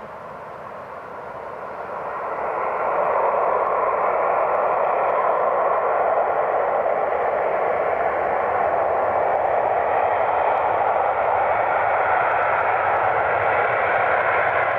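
Boeing 747's four jet engines at high thrust on the takeoff roll, the sound swelling over the first three seconds and then holding steady and loud.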